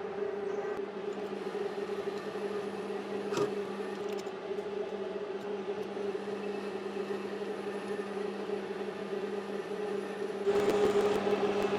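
Metal lathe running with a steady hum while turning a steel rod. Near the end a louder, rougher noise comes in over it.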